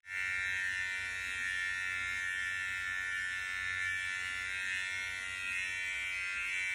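Wahl electric hair clippers with a number 4 guard running steadily against the nape, a little loud: an even, high buzz. With the high guard on they take little hair off.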